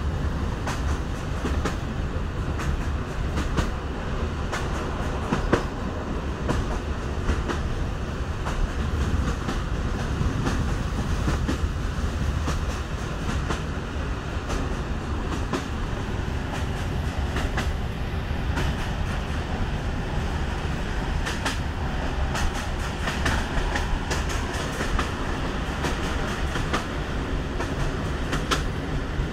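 EN57 electric multiple unit running, heard from inside the car: a steady low rumble of the wheels on the track, with sharp clicks from the rails scattered through, more of them near the end.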